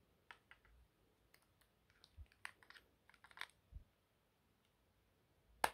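Faint plastic clicks and taps as Samsung Galaxy Buds+ earbuds are set into the slots of their charging case, with one much sharper click near the end.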